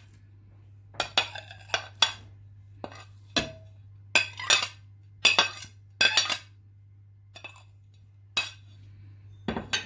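A metal spoon clinking and scraping against a ceramic plate and a glass mixing bowl as chopped vegetables are tipped into beaten eggs: a string of sharp clinks and short scrapes in uneven runs, one clink ringing briefly. A steady low hum runs underneath.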